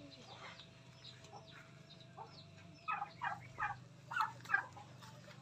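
Backyard poultry calling: a run of about six short calls in two quick groups, about three and four seconds in, over a low steady hum.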